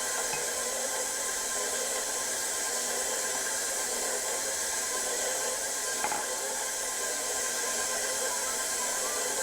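Electric mixer motor running steadily, with one faint click about six seconds in.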